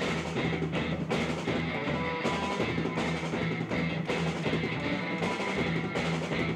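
Live rock band playing: distorted electric guitars over bass and a drum kit keeping a steady beat.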